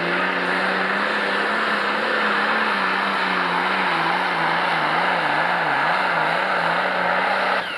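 Pro Stock pulling tractor's turbocharged diesel engine running at full power under load while dragging the weight sled. The engine pitch wavers up and down several times midway, and the engine is throttled back abruptly near the end as the pull finishes.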